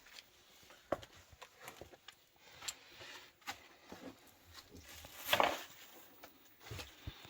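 Scattered footsteps with small knocks and crunches of debris underfoot, and one louder crunch about five seconds in.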